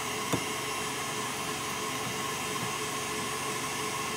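Electric mixer running steadily with a whirring hum as it whips egg yolks and sugar, with one light click about a third of a second in.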